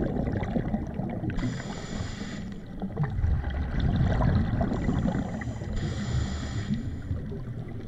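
Underwater sound of a diver breathing through a scuba regulator: hissing inhalations about a second and a half in and again around five and six seconds, with low rumbling exhaled bubbles between them.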